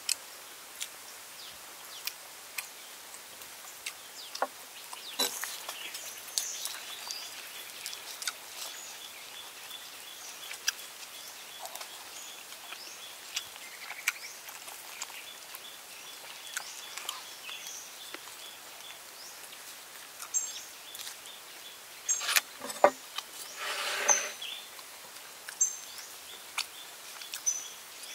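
Outdoor ambience with short bird chirps, under scattered clicks and knocks from eating and cutting a whole roast chicken with a cleaver on a wooden board. A cluster of knocks and a short crunch about three quarters of the way through is the loudest part.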